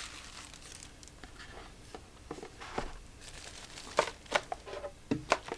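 Tissue paper and cardboard packaging rustling and crinkling as they are handled, with a few sharp light knocks about four seconds in and again near the end.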